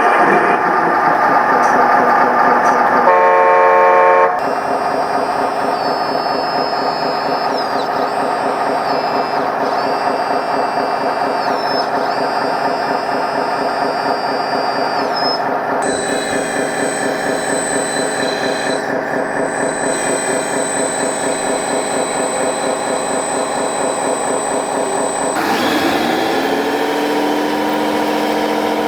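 1/12-scale metal hydraulic RC D3 bulldozer running: the brushless pump and drive motors whine over a steady mechanical rattle, the pitch shifting in steps several times and gliding down near the end.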